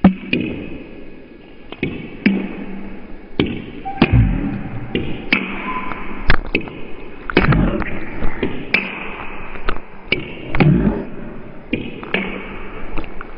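Table tennis ball clicking sharply off bats and table at uneven intervals during a fast rally, with a few low thuds mixed in.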